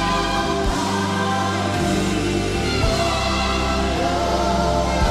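Live gospel worship music: a choir holds sustained notes over the band, and the bass changes chord about every two seconds.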